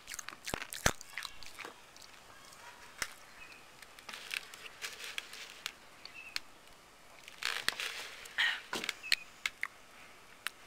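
Pop Rocks popping candy chewed and crunched in the mouth, with scattered sharp clicks and crackles, along with sips of Diet Coke through a straw.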